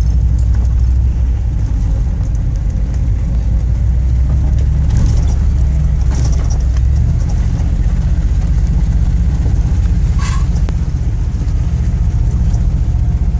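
Chevy Suburban driving on a muddy dirt track, heard from inside the cabin: a steady low engine and road rumble. A few short knocks and rattles come from bumps along the way.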